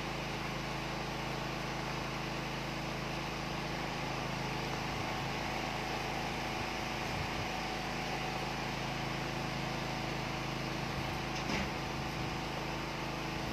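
Steady low hum with an even hiss, unchanging throughout: background room noise.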